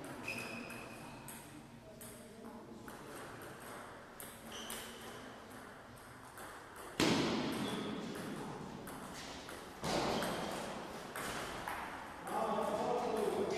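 Table tennis ball clicking off rackets and the table in a string of light taps, with two louder hits about seven and ten seconds in that echo through a large hall.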